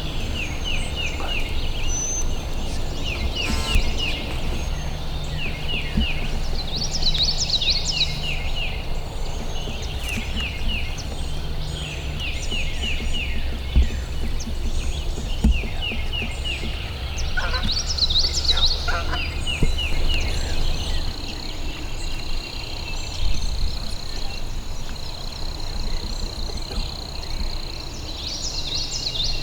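Birds calling in woodland: short runs of quick falling notes repeat every second or two. A low steady hum runs underneath and stops about two-thirds of the way through.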